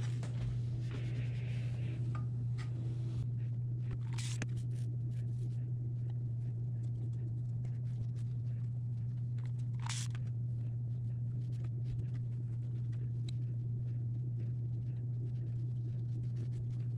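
A steady low hum throughout, with faint rubbing and handling noise as a dry iron is pressed over cotton quilt pieces on a wool pressing mat, and two short clicks about four and ten seconds in.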